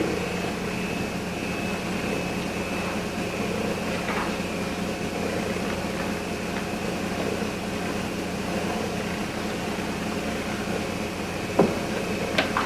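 Steady background hum and hiss in a room, with a few faint clicks about four seconds in and near the end.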